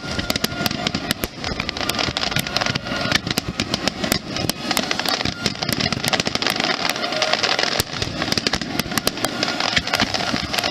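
Fireworks crackling: a dense, irregular stream of sharp pops and snaps that runs on without a break.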